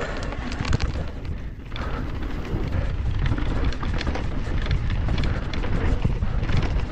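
Wind buffeting the microphone and knobby tyres rumbling over a loose dirt trail as a YT Decoy electric mountain bike descends, with frequent small rattles and clicks from the bike over the bumps.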